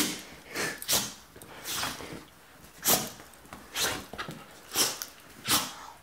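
A dog's 'laugh': a string of short, breathy huffs, a little more than one a second, the excited sound it makes when its leash is fetched for a walk.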